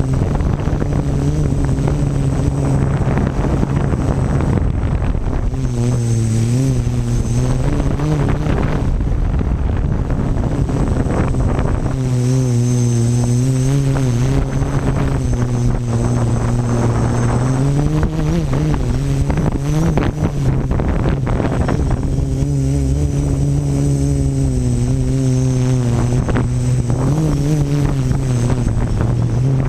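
Quadcopter's electric motors and propellers buzzing right beside the camera, the pitch wavering up and down as the throttle changes, with wind rushing over the microphone at times.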